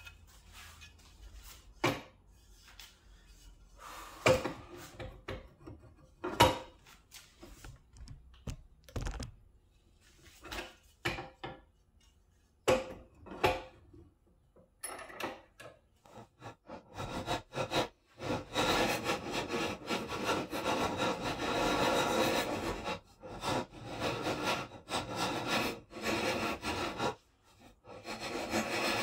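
Scattered knocks and clunks of a plywood canoe yoke being handled and set in a bench vise, then, from a little past the middle, a run of quick scraping strokes of a hand file working the yoke's edge, broken by short pauses.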